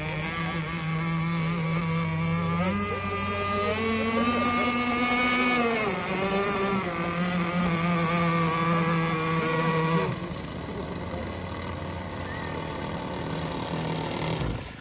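Gas-powered two-stroke RC boat engine running on the water. Its pitch rises as it throttles up about three seconds in, settles back down around six seconds, and the sound drops in level after about ten seconds.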